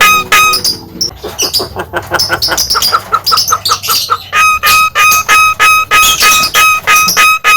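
Javan myna (jalak kebo) calling: a loud, clear note repeated about three to four times a second. About a second in it breaks into faster, quieter, varied chattering notes, and the repeated note returns about four and a half seconds in.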